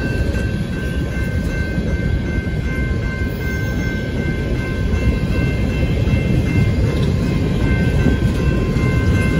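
Coal train's freight cars rolling past: a steady, loud rumble of wheels on rail, with a steady high-pitched tone over it.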